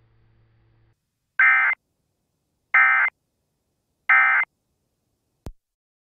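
Emergency Alert System end-of-message data tones: three short identical bursts of digital data about a second and a half apart, signalling the end of the alert. A single sharp click near the end.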